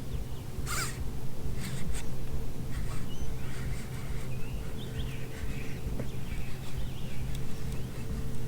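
Birds chirping in short calls over a steady low hum and rumble, with a sharp click about a second in.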